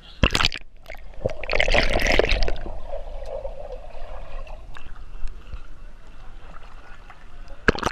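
Pool water splashing and sloshing around a camera being dipped in and out of a swimming pool, with muffled underwater gurgling while it is submerged. A sharp splash comes about a quarter second in, a longer rushing splash around two seconds in, and another sharp splash near the end.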